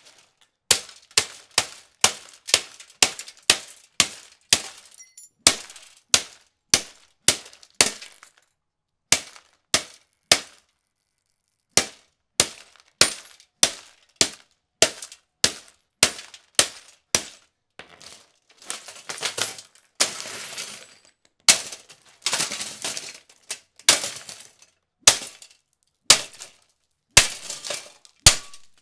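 A Lasko 3733 20-inch plastic box fan being smashed again and again with a golf club: sharp cracking blows, about two a second, with two short pauses. In the second half the blows come with longer crunching and rattling of broken plastic pieces.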